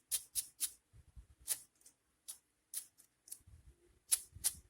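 Plastic MoFang JiaoShi 5x5 cube being turned in the hands, its layers giving a run of irregular sharp clicks, with the loudest pair near the end.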